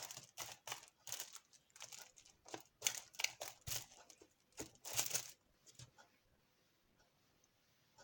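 Fluffy slime made with shaving foam being squeezed and stretched by hand, giving a quick series of sticky crackling and squelching pops that stop about five and a half seconds in.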